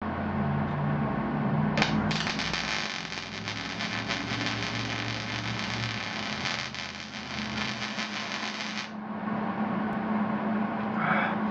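Electric arc welding on an ATV frame: the arc strikes briefly just before two seconds in, then runs as a continuous crackling hiss for about seven seconds and cuts off suddenly near nine seconds. A steady low hum sounds underneath throughout.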